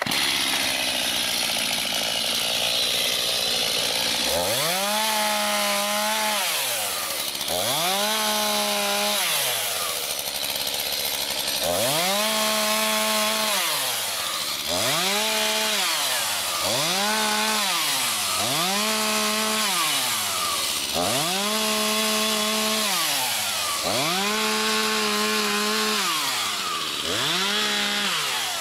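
Stihl MS 251 C two-stroke chainsaw running at idle, then throttled up about nine times in a row to cut limbs from a downed log. Each time the engine speeds up, holds at full revs for one to two seconds, and drops back to idle.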